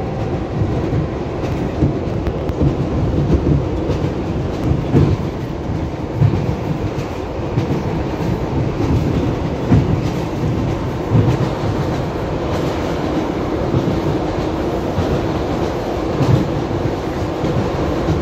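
Ride inside an ED9MK electric multiple-unit carriage under way: a steady low rumble with the knock of the wheels over rail joints every second or so.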